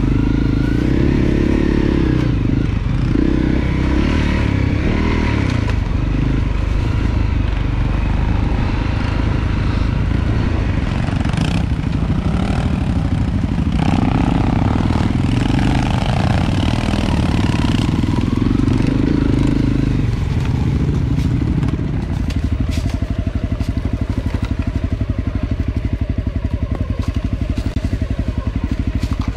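Honda CRF250L's single-cylinder four-stroke engine running with the revs rising and falling. About three-quarters of the way through it settles into a steady, even idle.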